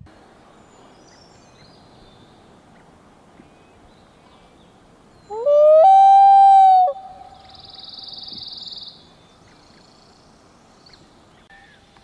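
Common loon giving a wail: about five seconds in, a loud call rises in pitch, holds one steady note for about a second and a half, then drops off. A fainter high trill follows for about two seconds.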